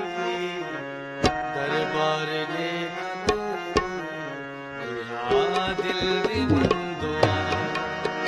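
Instrumental interlude: harmonium holding chords and melody under tabla. The tabla strokes are sparse at first, then from about five seconds in turn into a busier rhythm with the low bass drum.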